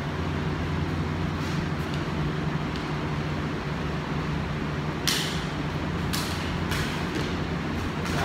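Steady low hum of a gym fan running, with a few short, sharp hisses about five to seven seconds in.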